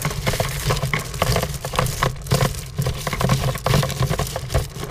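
Galvanized 8 mm anchor chain rattling and clinking as it is fed into a plastic-lined box and piles onto itself, a dense run of irregular metallic clicks.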